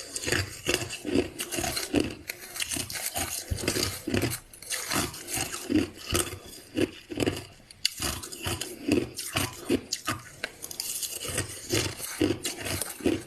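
A person chewing crushed ice close to the microphone: irregular crunches, several a second, with short pauses between bites.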